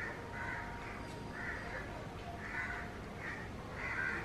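A bird calling over and over in the background, about six short harsh calls spaced half a second to a second apart.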